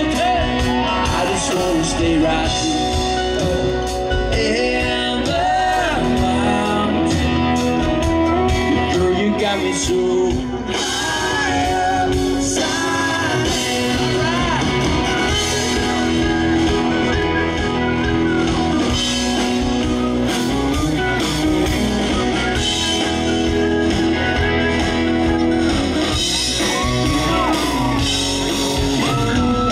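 Live country band playing a song, with a male lead vocal over strummed acoustic guitar and a full band backing.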